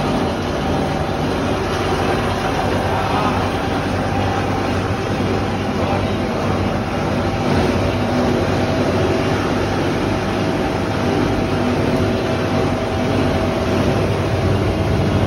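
Scrap copper wire granulator machine running steadily, chopping cable while its vibrating separator table shakes out the copper granules. A dense, even machine noise with a steady hum.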